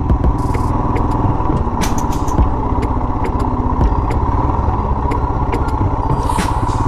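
Royal Enfield Himalayan's single-cylinder engine running steadily while riding an off-road trail, with scattered short clicks and knocks over the engine's pulsing.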